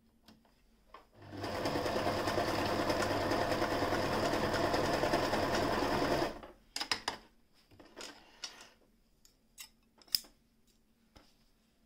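Frister & Rossmann 202 electric sewing machine running steadily at speed for about five seconds while stitching fabric, then stopping abruptly. After it come a few short handling clicks and a sharp snip of scissors cutting the thread.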